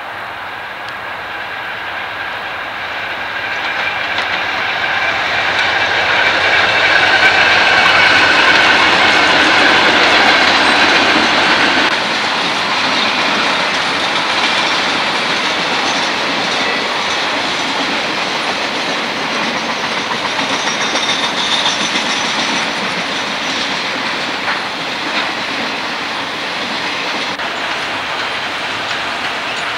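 Diesel freight locomotives and their train rolling past close by, engines running and wheels clacking over rail joints. For the first twelve seconds the sound builds, with a steady high whine over it; then it changes abruptly to a noisier rolling train sound with a faint wheel squeal.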